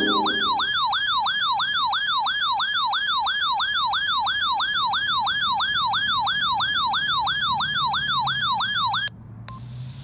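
RadioShack weather radio sounding its siren alarm on receiving a Required Weekly Test: a loud electronic tone that sweeps downward over and over, about three to four times a second, stopping abruptly about nine seconds in.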